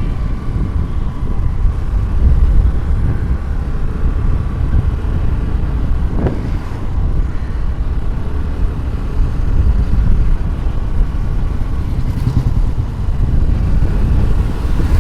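Moving road vehicle: a steady low rumble of engine and road noise, with a brief rising and falling sweep in pitch about six seconds in.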